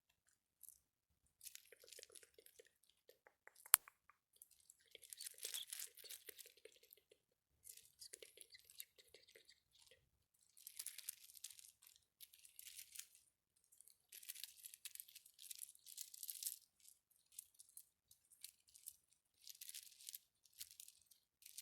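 A crunchy trigger object handled close to the microphone, giving repeated bursts of crisp crackling and crunching about a second or two long with short gaps between them. There is one sharp click about four seconds in.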